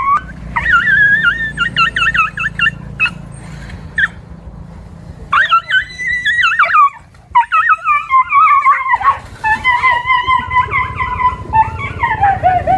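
Frightened dogs yelping and whining in repeated high, wavering cries, some of them long and falling in pitch.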